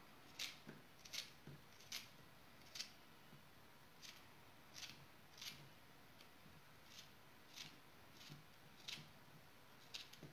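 Kitchen knife cutting raw zucchini into chunks held in the hand over a plate: quiet, crisp cuts at an uneven pace, roughly one or two a second.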